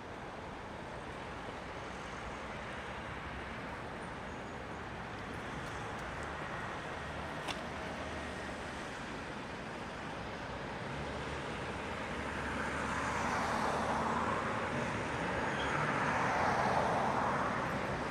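Diesel freight locomotive hauling a train of tank wagons, approaching, its engine and wheel noise growing louder through the second half. A steady background rumble runs underneath, with one sharp click about seven and a half seconds in.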